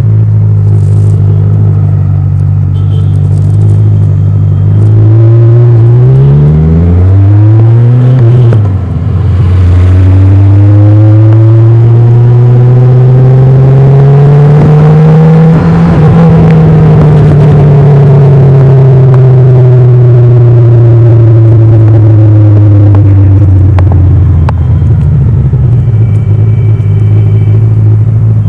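Kawasaki Ninja 1000's inline-four engine on its stock exhaust, under way. The note holds steady, then the revs climb quickly with a brief break in loudness at a shift. A long, slow rise in pitch follows, peaking about halfway through, then the pitch eases back down and settles steady near the end.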